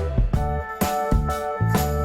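Background music: an instrumental track with bass, keyboard and a steady drum beat.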